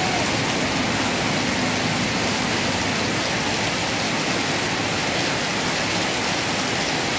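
Heavy rain pouring down onto a wet street: a dense, steady hiss that neither builds nor fades.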